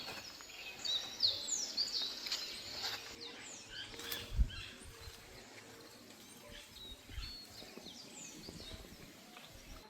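Wild birds calling: many short, high chirps that slide downward, repeated often, thickest in the first half and thinning toward the end. Two brief low thumps come about four and seven seconds in.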